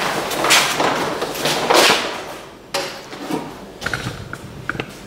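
Polyethylene underlayment film rustling and crinkling in a few loud swishes as the sheet is spread and shifted over a concrete floor, then a sharp knock and a few light ticks.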